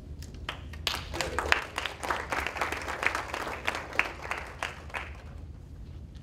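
A small audience applauding, individual claps distinct, starting just after the reader is called up and dying away about five seconds in.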